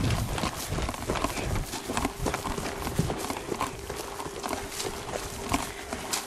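Quick footsteps crunching over dry grass and fallen leaves, about two steps a second, with brush and clothing rustling.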